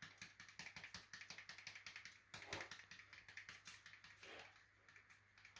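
Fish seasoning shaken from a small shaker onto a fillet on aluminium foil: faint, rapid ticking and rattling.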